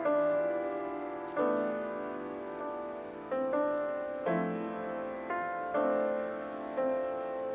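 Solo piano played slowly: chords struck about once a second, each left to ring and fade before the next.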